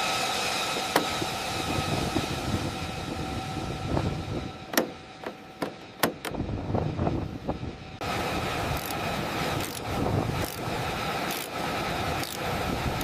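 Jet engine running steadily with a whine over a rushing noise, broken by a few sharp metallic clanks around one, five and six seconds in. The engine sound changes abruptly about eight seconds in.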